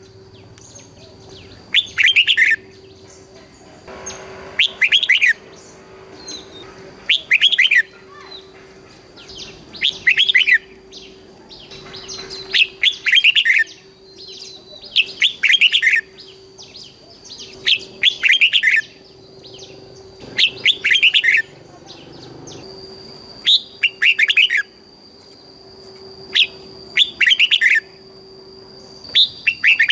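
Red-whiskered bulbul singing short, bright, warbling song phrases over and over, one every two to three seconds. This is the repeated-phrase 'double' (เบิ้ล) song that Thai bulbul keepers play to excite and train caged birds. A faint steady hum runs underneath.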